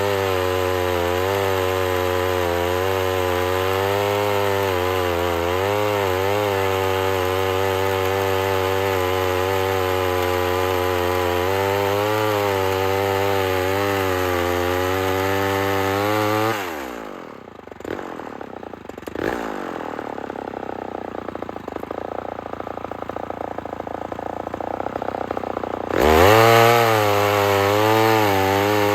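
Homelite two-stroke chainsaw running flat out under load, cutting through a large log. About two-thirds of the way in, the engine note drops sharply to a quieter idle for several seconds, then the saw revs back up to full throttle near the end.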